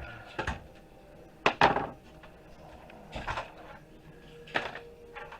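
Wire cutters snipping through a desktop computer's internal wiring: four sharp snaps, the loudest about a second and a half in.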